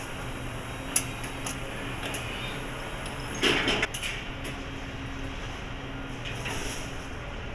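Assembly-line machinery: a steady hum with a sharp click about a second in and a short burst of hissing clatter about three and a half seconds in.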